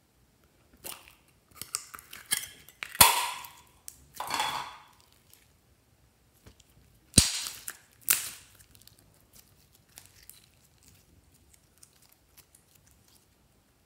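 A thin plastic diamond-shaped slime container crackling and snapping as it is squeezed and emptied, with two loud sharp snaps about four seconds apart. Each snap is followed by a short noisy rush, and small crackles fade out near the end.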